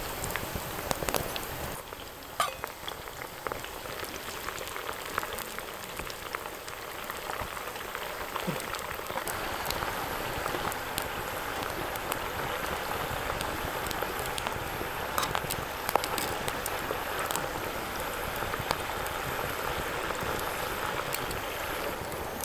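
Food boiling in a cooking pot: a steady bubbling hiss with scattered pops, a little louder from about nine seconds in.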